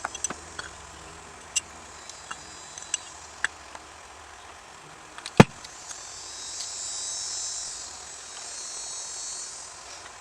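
Small metal carburetor parts clicking and tapping as they are handled, with one sharp click about five seconds in, then a hissing spray in two long swells, as when a carburetor part is sprayed clean.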